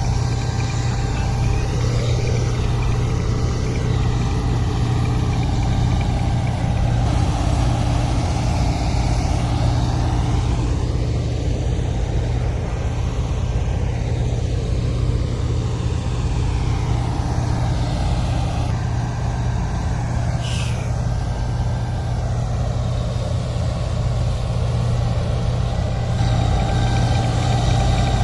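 A heavy engine of harvesting machinery runs steadily and loudly with a constant low drone, without pauses. About twenty seconds in, a brief high tone falls in pitch.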